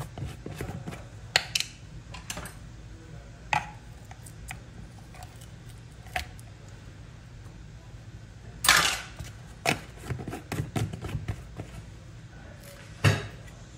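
Scattered clicks and knocks of kitchen utensils on a stainless steel pot and containers as a lump of butter is spooned in, with a longer clatter about nine seconds in and a sharp knock near the end. A low steady hum runs underneath.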